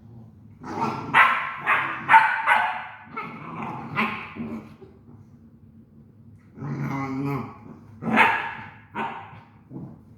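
Great Danes barking and growling in short outbursts: a rapid run of barks in the first few seconds, a pause, then a drawn-out growl and a couple more barks near the end.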